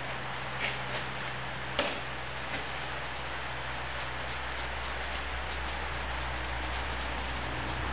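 Foundry moulding sand being sifted through a hand riddle onto a pattern in a wooden flask: a steady hiss of falling sand, with a few clicks in the first two seconds and then a quick, even tapping of the shaken sieve, several taps a second, from about halfway.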